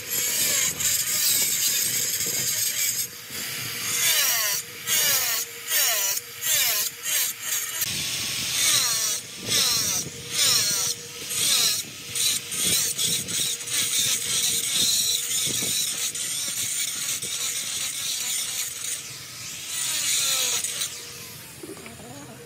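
Corded angle grinder with an abrasive disc grinding along the edge of a stone slab. The gritty grinding swells and drops repeatedly as the disc is pressed on and eased off, then dies away near the end.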